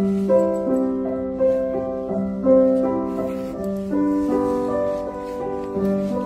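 Grand piano played solo: a slow melody of sustained notes over held lower notes, each note ringing on.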